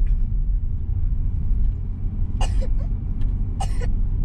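Steady low road and engine rumble inside the cabin of a 2022 Mitsubishi Xpander CVT coasting downhill in DS, its engine braking the car. Two brief sharper sounds come through about two and a half and three and a half seconds in.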